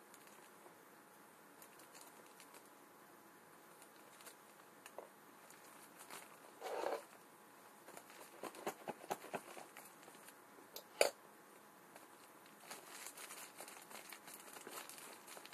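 A tape-wrapped plastic mailing parcel being handled and turned over in the hands: its wrapping crinkles and rustles in short bouts, with scattered small clicks and one sharp click about two-thirds of the way through.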